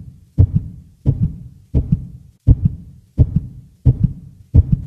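Heartbeat-style sound effect: a deep double thump repeating about once every 0.7 seconds, seven beats in all, each fading out quickly.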